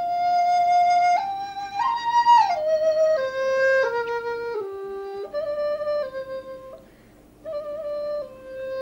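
Background music: a solo flute melody of slow, held notes, stepping mostly downward, with a short pause about seven seconds in.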